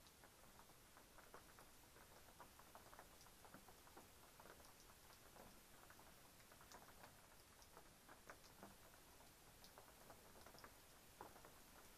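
Light rain pattering and dripping: many scattered, irregular small drops over a faint hiss.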